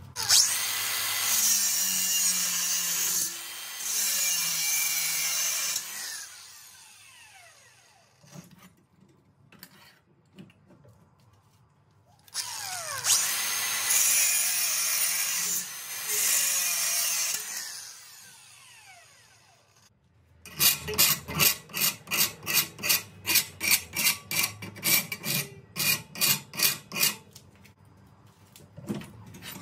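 Makita cordless angle grinder cutting a notch into a mild-steel strip clamped in a vise, in two runs of about five seconds, each ending with the disc winding down in a falling whine. Near the end, about twenty quick rasping strokes on the steel, roughly three a second.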